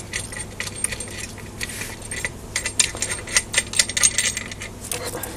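A bolt being turned out by hand from the side of an Emotator rotator's gearbox housing: an irregular run of small metallic clicks and clinks.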